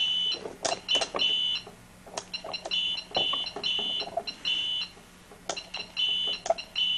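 Electronic keypad beeping as its buttons are pressed: a string of short, high beeps, each starting with a click, at an uneven pace, about eight in all.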